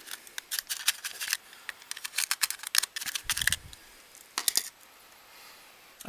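Irregular bursts of scraping and clicking as a strip of aluminium can pokes and packs magnetite powder around a graphite crucible in a ceramic cup. There is a dull low knock a little after three seconds in.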